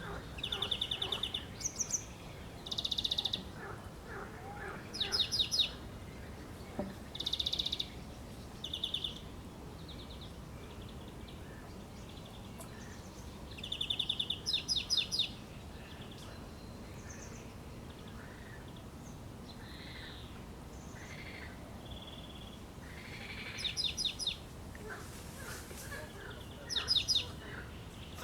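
A songbird singing short, bright trilled phrases again and again with pauses between them, over a faint steady background hiss; there is a longer gap in the middle.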